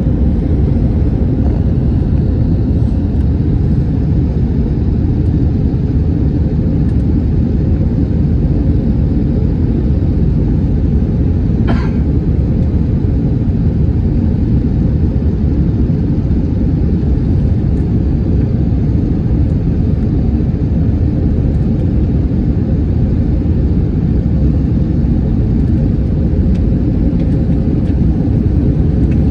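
Airbus A321 airliner's steady low rumble of engines and airflow on its way in to land, with one brief click about twelve seconds in.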